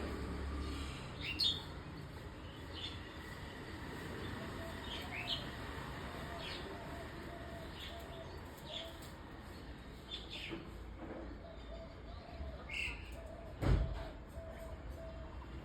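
Pigeons with a soft pulsing cooing that sets in a few seconds in. Short high chirps from small birds come about once a second, and there is one sharp thump near the end.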